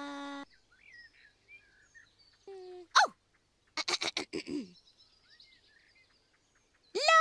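A Teletubby's high voice making short wordless sung notes: a held note, a quick upward swoop, a fast run of short hiccup-like sounds, and a rising note near the end. Faint bird chirps fill the gaps.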